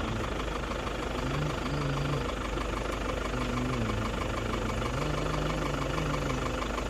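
An engine running steadily, with low held tones that shift up and down in pitch every second or so.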